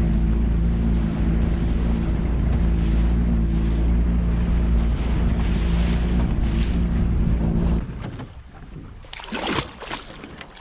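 Boat motor running at a steady speed, a loud even hum of several low pitches with wind and water noise over it, cutting off suddenly about eight seconds in.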